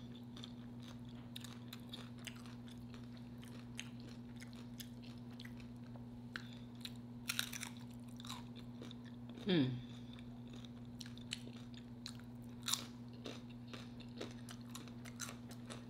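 Close-miked chewing and crunching of homemade nacho chips, irregular crisp crackles and mouth sounds over a steady low hum, with a brief falling hummed voice sound a little past the middle.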